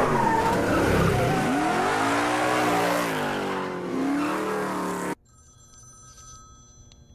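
A car engine revving hard and rising and falling in pitch as the car speeds off, with tyre squeal. About five seconds in it cuts off abruptly to a quiet room, where a telephone starts ringing faintly.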